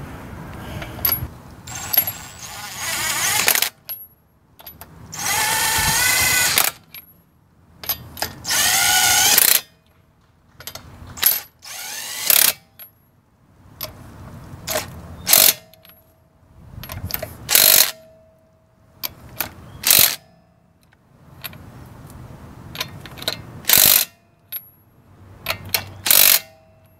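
Cordless impact driver running lug nuts onto a car wheel hub in a series of about a dozen bursts. A few are longer and rise in pitch as the motor speeds up while a nut spins down the stud; the rest are short hits as each nut is snugged against the wheel. Small metallic clicks come between the bursts.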